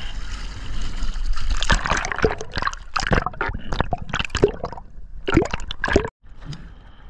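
Water splashing and gurgling around the camera as a freediver dives under from the surface: a rush of noise, then a dense run of sharp splashes and bubbly gulps, quieter near the end once under water.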